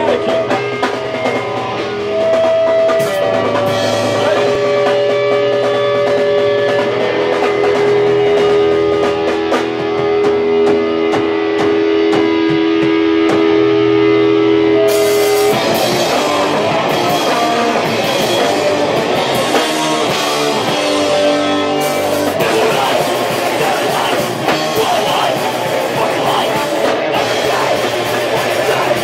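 Live rock band playing electric guitar and drum kit, loud and raw. The first half is built on long held notes. About halfway in, the band comes in fuller with cymbals.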